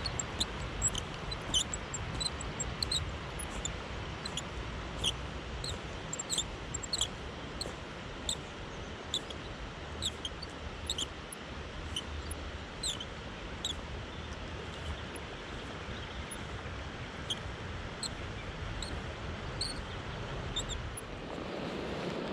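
Spinning reel squeaking with each turn of the handle during a retrieve, short high squeaks about twice a second that fade out near the end, over a steady rush of river water; the reel is dry and needs oil.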